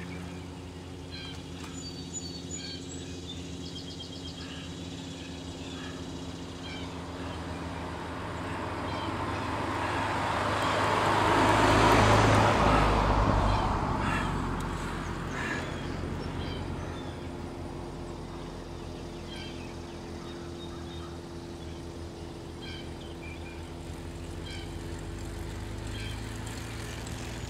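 A motor vehicle passes, its sound swelling to a peak about twelve seconds in and then fading, over a steady low engine hum.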